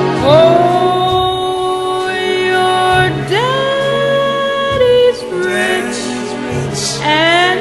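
Background music with singing: long held notes that slide up into pitch, over a steady low backing.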